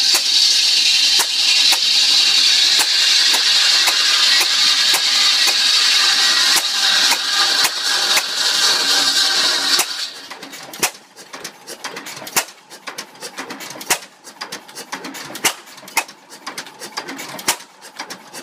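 Buzz-saw blade cutting wood with a loud, steady hiss, driven by a single-cylinder Associated 6 HP hit-and-miss engine whose sharp firing knocks and clatter sound under it. The cut ends about ten seconds in; after that the saw spins free and the engine fires only now and then, skipping beats as its hit-and-miss governor holds the speed with no load.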